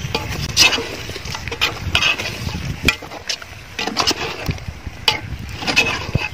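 A spoon stirring thick chicken masala in a large aluminium pot, scraping and knocking against the pot in irregular strokes.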